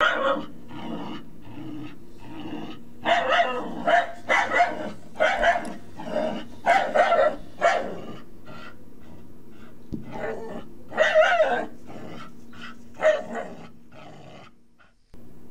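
A dog barking again and again, one or two barks a second, over a steady low hum; the barking fades out near the end.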